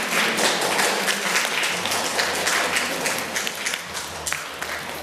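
Audience applauding, a dense patter of many claps that eases off slightly near the end.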